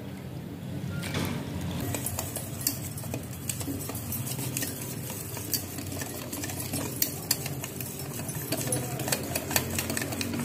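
A spoon stirring fast in a stainless steel bowl of ragi flour and water, clicking and scraping against the bowl's sides and bottom in a quick, continuous rhythm as the flour is dissolved into a lump-free batter.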